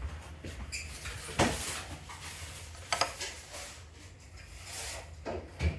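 Tableware being handled: a short ringing clink just under a second in, then a few knocks of dishes or utensils set down, about a second and a half, three and five and a half seconds in.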